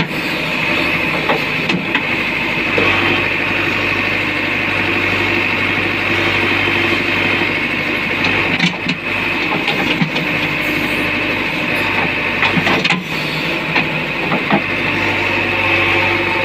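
JCB 3DX backhoe loader's diesel engine running steadily under work, with a few sharp knocks about halfway through and again later.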